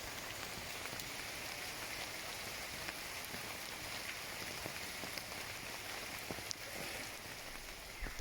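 Steady rain falling, with scattered single drops heard as small ticks.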